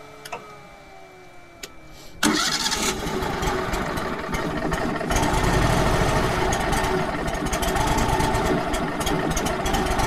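Wood-Mizer LT35 sawmill's gas engine starting: after about two seconds of quiet it catches suddenly and runs, growing louder about halfway through. The engine is still cold and needs a little choke to keep running.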